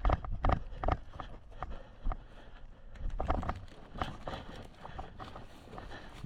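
Irregular knocks and footsteps on a hard floor, loudest in the first second, with another cluster of knocks about three to four seconds in.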